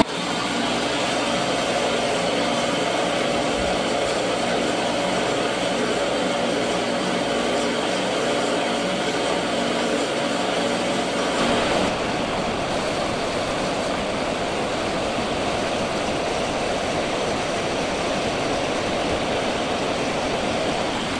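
Motor-driven drill chuck spinning a steel bolt while a flat file is held against its threaded end to shorten it: a steady whir and rasp that changes in tone about halfway through.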